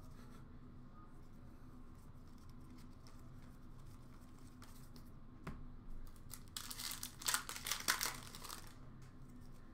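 Trading-card pack wrapper crinkling and tearing as a pack of Upper Deck hockey cards is handled and opened, in a cluster of rustles from about halfway through until shortly before the end. Before that there is only a faint steady hum.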